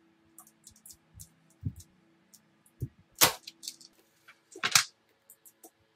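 Sheet-metal chassis of an old power stabilizer, with a heavy transformer inside, being handled and shifted on a workbench: scattered light clicks and knocks, with two louder metallic knocks about three seconds in and again over a second later.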